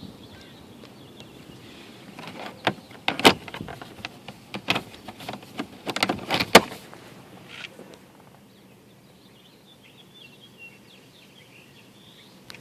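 A run of sharp clicks and knocks at uneven spacing, about six in four seconds, the last one the loudest, followed by faint high chirping.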